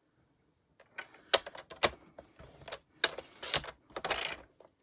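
Paper trimmer in use, cutting a sliver off a piece of cardstock: a run of sharp clicks and knocks, then a short scraping swish near the end as the blade slides along the rail.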